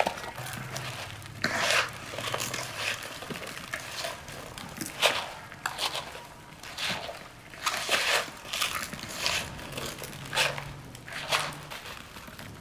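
Irregular crinkling and crunching handling noises, a sharp rustle every second or two, with a faint low hum that comes and goes twice.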